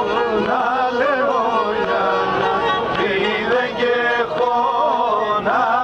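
Men singing a Pontic Greek folk song in a wavering, ornamented line, accompanied by a bowed Pontic lyra (kemenche).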